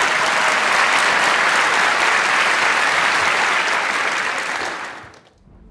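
Studio audience applauding, dying away about five seconds in.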